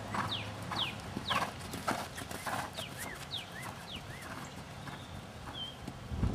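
Hoofbeats of a horse cantering on a sand arena, a soft even beat about every 0.6 s, with short high chirps over it.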